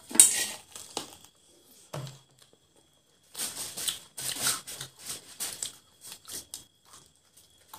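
Close-up eating sounds: biting into and tearing meat from fried chicken drumsticks, then chewing, in short irregular bursts. The loudest bite comes just after the start, with a run of smaller tearing and chewing sounds from about the middle.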